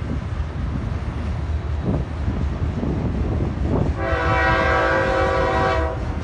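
Freight train of autorack cars rolling past with a steady rumble and wheel noise. About four seconds in, a diesel locomotive's multi-chime air horn sounds one steady chord for about two seconds and cuts off.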